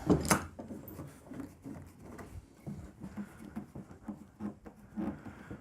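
A piece of oak being clamped down on a workbench: a sharp knock near the start, then faint scattered clicks and rubbing of wood and metal as the work is handled and secured.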